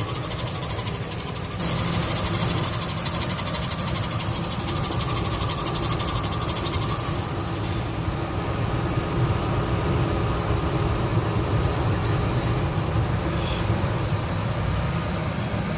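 Serpentine belt squealing with a high pitch over a running engine; about seven seconds in the squeal glides down and stops, leaving the engine running steadily. The squeal is from a belt that is slipping but not cracked, the kind cured with silicone lubricant.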